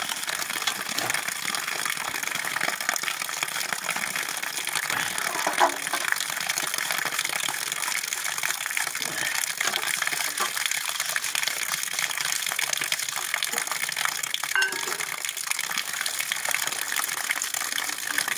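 Water gushing steadily, a continuous rushing hiss like a tap or a pour filling a vessel.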